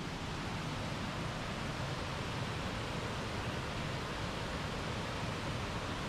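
Waterfall: a steady, even rush of water pouring over rocks.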